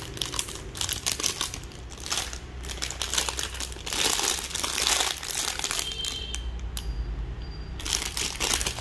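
Clear plastic packaging bag crinkling and rustling as the bagged insulating tube inside it is handled and turned over, with a quieter stretch about six seconds in.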